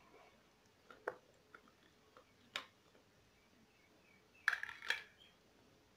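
Cut lemon pieces dropping from a steel plate into a plastic tub: a few soft knocks, then a louder short clatter a little before the end.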